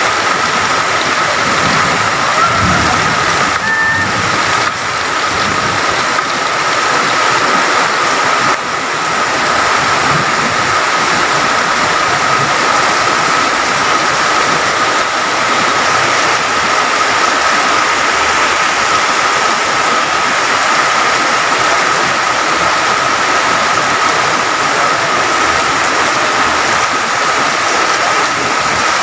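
Heavy rain pouring steadily, mixed with rushing water, with a steady high tone running underneath.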